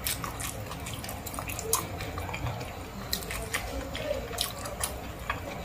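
A person chewing goat-head meat with the mouth closed, close to the microphone, making irregular wet smacking clicks.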